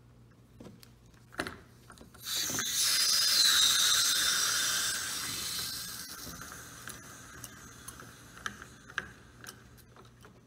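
Hand-turned water valve on a water-softener outlet being opened: a few clicks from the handle, then about two seconds in a loud hiss of water rushing through the valve into the hose, with a brief whistle in it. The hiss fades away over the next few seconds.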